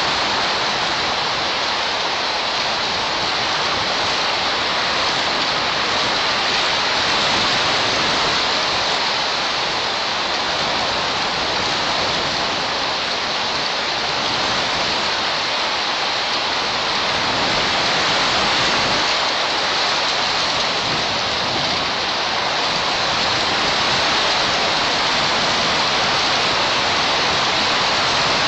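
A steady, even rushing hiss with no distinct events, like rain falling on the nest and tree.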